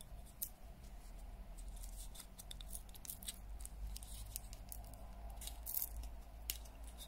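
Faint scattered clicks and small plastic rustles from hands working a small round pop-up grip, trying to press it back together, over a low steady hum.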